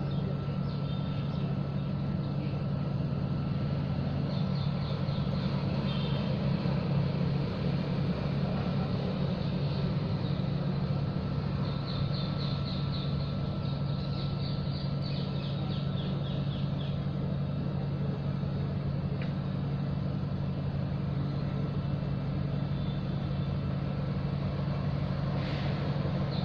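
A steady low mechanical hum, like an engine running, holding level throughout, with short runs of rapid high chirps every few seconds.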